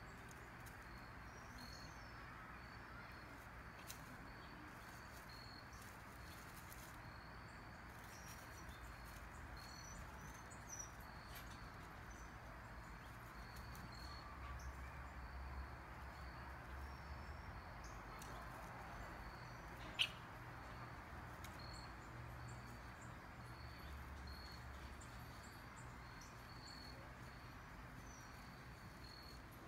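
Faint garden ambience: a short high chirp repeating about once a second over a steady soft hiss, with a single sharp click about twenty seconds in.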